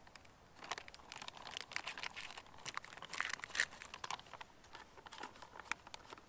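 Plastic cook-in pouch of a dehydrated meal being handled and crinkled, with many irregular crackles throughout.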